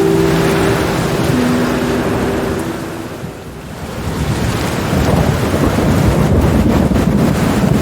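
Heavy rain with rolling thunder. The storm noise sags about halfway through, then swells again with a deep rumble of thunder.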